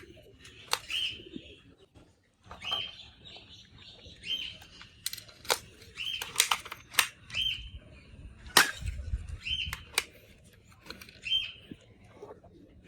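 A bird chirping over and over, one short call every second or two, with sharp clicks in between; the loudest click comes about eight and a half seconds in.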